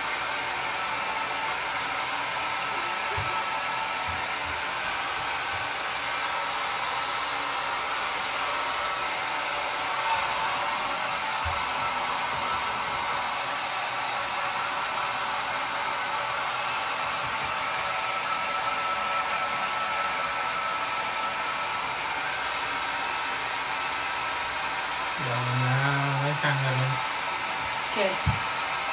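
Handheld hair dryer blowing steadily on wet hair, a continuous rush of air with a faint high whine. Near the end, brief pitched sounds cut in over it.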